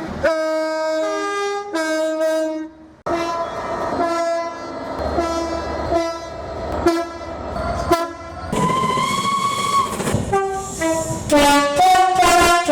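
Class 70 diesel locomotive's horn sounded as a rapid tune: many short blasts that jump between different pitches, one after another, with a longer higher note about 9 seconds in.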